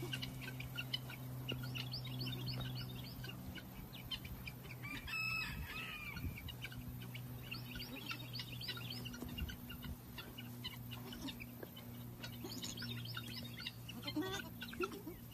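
Birds chirping in rapid clusters of short high notes, with a louder call about five seconds in and a few lower calls near the end, over a steady low hum.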